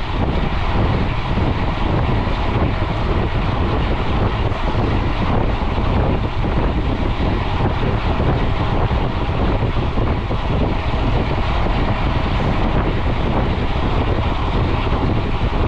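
Steady wind rush and rumble on a GoPro's microphone from a mountain bike riding fast on the road.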